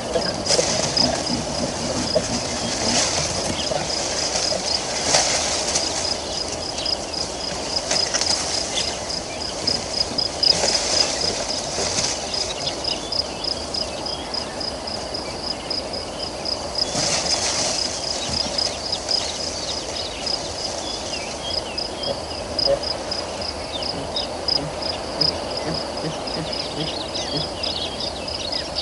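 Insects chirping outdoors: a steady, evenly repeated high-pitched chirp over a background hum of other insects, with the insect noise swelling now and then.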